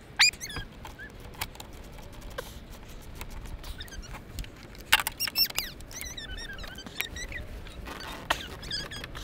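A socket ratchet on an extension clicking in short runs as the battery hold-down bracket is bolted back in, with sharp metal clicks and thin, high squeaks. The loudest clicks come about five seconds in.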